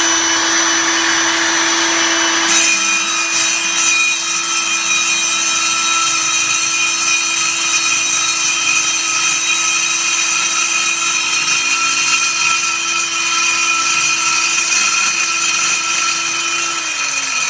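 Water-fed concrete core drill running with a steady motor whine. About two and a half seconds in, a harsher grinding hiss with high ringing tones joins as the bit bites into the concrete, and keeps on steadily while it cuts. Near the end the motor's pitch slides down.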